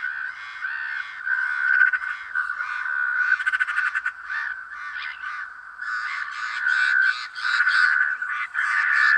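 A dense chorus of animal calls, many overlapping and calling continuously, with a quick rattling call about three and a half seconds in.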